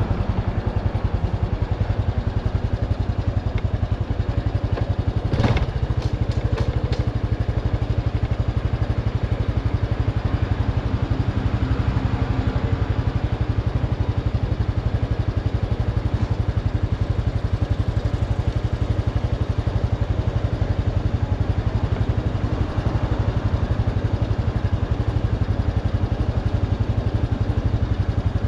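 Motorcycle engine running with a low, steady rumble, idling while the bike stands still for most of the stretch. A sharp click comes about five and a half seconds in.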